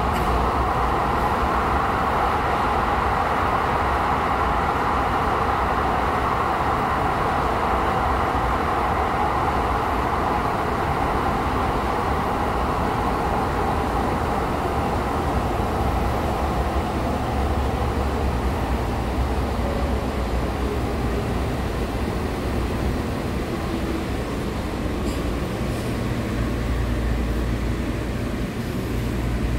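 Interior running noise of a Breda light rail vehicle: a steady rail rumble with a broad mid-pitched rush that is strongest at first and fades over the middle, and a low hum that comes up near the end.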